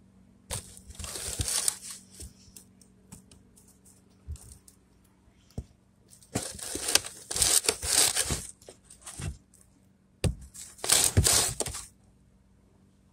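Handling noise from a phone camera being moved and positioned: three bouts of rustling and scraping with sharp knocks and bumps, the middle one the longest, over a low steady hum.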